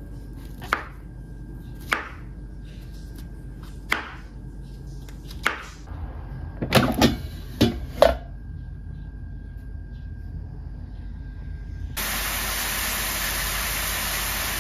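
A chef's knife slicing button mushrooms on a wooden cutting board, single sharp chops every second or two, then a short cluster of louder knocks and clatters as an air fryer basket is handled. From about twelve seconds, a steady sizzle of mushrooms and onion sautéing in a pan.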